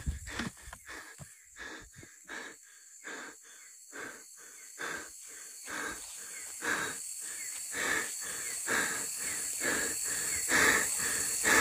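A person moving quickly through undergrowth: short rustling steps and breaths, about two to three a second, growing louder toward the end, over a faint steady high hum of night insects.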